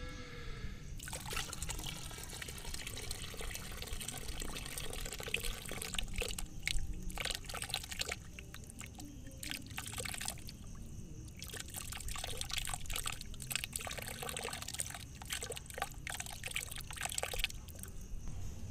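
Water splashing and trickling in irregular spells, with short lulls about 8 and 11 seconds in.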